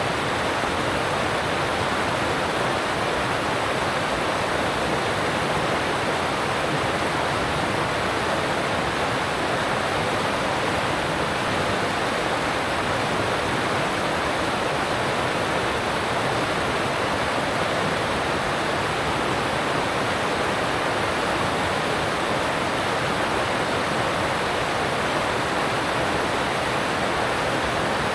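Alpine stream rushing over rocks: a steady, even roar of running water that never changes.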